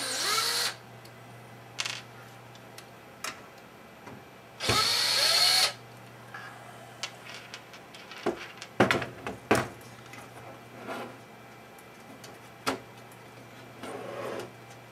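Cordless drill-driver backing out screws in two short bursts, a rising motor whine at the start and again about five seconds in. Between and after the bursts come sharp clicks and knocks as screws and metal parts are handled and set down on the desk.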